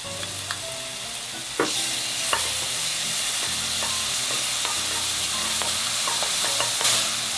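Minced garlic sizzling in a little oil in a nonstick wok while it is stirred with a wooden spoon, with light taps and scrapes of the spoon against the pan. The sizzle gets louder about one and a half seconds in.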